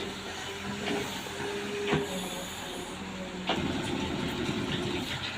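Excavator's diesel engine running steadily, with a few sharp knocks, the loudest about two seconds in. From about three and a half to five seconds in it runs louder and rougher.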